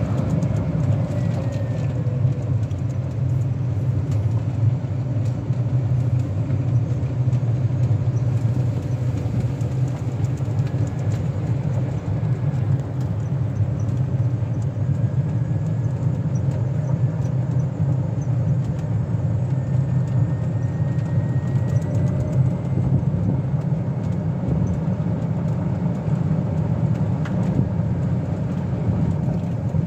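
Steady low rumble of a moving vehicle, heard from on board, with a faint thin whine rising in pitch about two-thirds of the way through.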